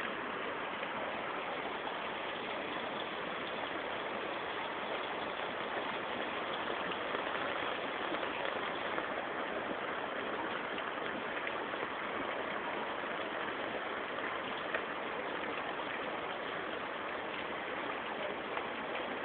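Heavy monsoon rain falling on a flooded street, a constant hiss that holds steady throughout.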